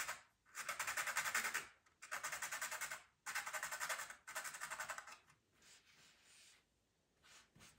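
A pastel pencil being sharpened: five rasping strokes of about a second each with short pauses between them, giving way to faint scratching after about five seconds.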